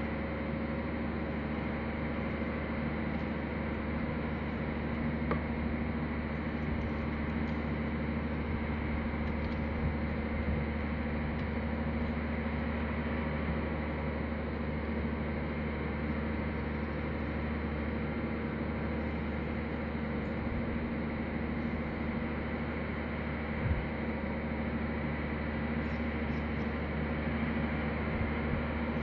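Steady mechanical hum with several pitched lines over a noisy haze, and faint scraping with a few light clicks from a small knife carving a plaster block.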